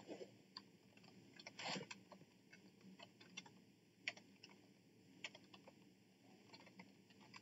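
Faint computer keyboard typing: irregular, separate key clicks as a short message is typed. There is one brief, louder rush of noise a little under two seconds in.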